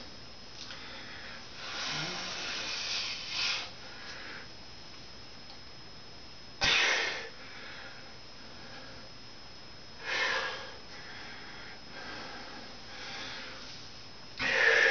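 A man breathing hard in recovery after a set of push-ups: several separate sharp exhales and sniffs between quieter breathing, the loudest about seven seconds in.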